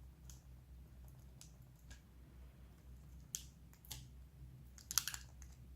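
Faint, scattered clicks and taps from handling a laptop's display panel as it is worked loose from the lid, with a quick cluster of clicks near the end, over a low steady hum.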